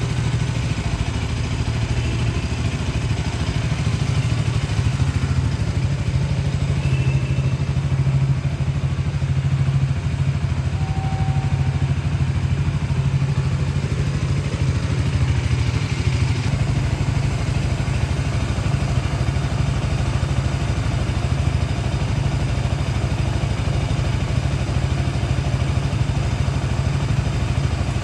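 KTM Duke 200 (2023) single-cylinder engine idling steadily, with no revs.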